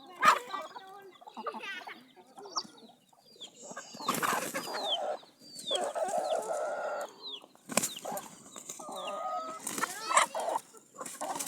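Chickens clucking, with several short high calls that fall in pitch.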